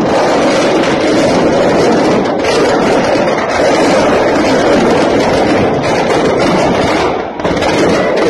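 Firecrackers packed into a burning Dussehra Ravana effigy going off in a loud, continuous crackle of pops and bangs.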